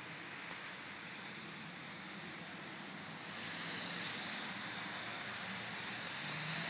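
Steady outdoor rushing noise, growing louder and hissier about three seconds in.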